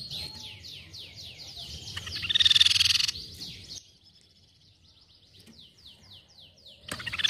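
Crescent-chested babbler (tepus pipi perak) calling: quick runs of short, falling whistled notes, several a second. About two seconds in, a loud harsh chattering burst lasts about a second. The runs stop briefly, then start again, and a second loud chattering burst begins near the end.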